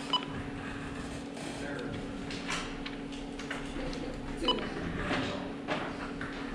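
Steady hum of an optical comparator, with two short key beeps from the Heidenhain Quadra-Chek readout, one just after the start and one about four and a half seconds in, as measuring points are entered. Light knocks from handling the stage come in between.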